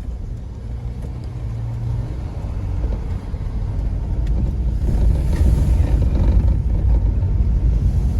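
Car being driven in town traffic, heard from inside the cabin: a steady low rumble of engine and road noise that grows louder about five seconds in.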